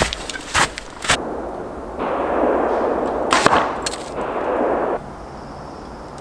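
A few sharp crunching footsteps in snow, then about three seconds of close rustling and two sharp knocks from the camera being handled and set down in the snow.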